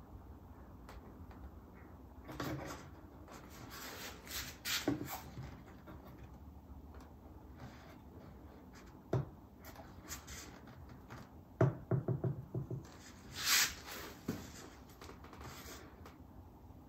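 Intermittent light wooden knocks, clicks and rubbing from hands working a wooden bridge-clamping fixture and cam clamp on an acoustic guitar body, as clamping pressure is set on a freshly glued bridge. A few sharper clicks come in the second half.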